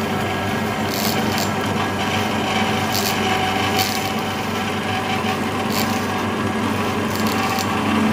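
Marvel Series 8 Mark II vertical band saw cutting through metal angle stock held in a vise. The blade makes a steady sawing noise over the hum of the running machine, with a few brief high-pitched ticks.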